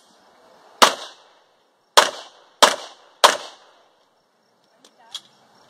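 Four pistol shots: one, then about a second later three more in quick succession, each followed by a short echo. Two faint clicks near the end.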